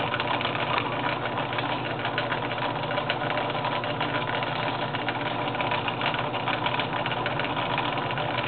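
Atlas Craftsman 101.214 6 by 18 inch lathe running steadily under its electric motor and belt drive, a constant hum with a fine, rapid mechanical clatter.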